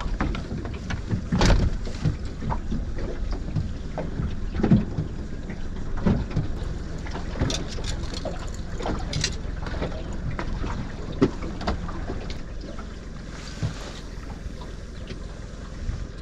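Wind buffeting the microphone aboard a small fishing boat on open water, with scattered knocks and clicks from the boat.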